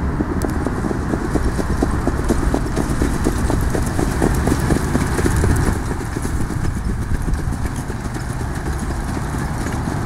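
Hoofbeats of two trotting horses pulling sulkies on a dirt track, a quick patter of strikes loudest as they pass and thinning out over the last few seconds. A steady low rumble runs underneath.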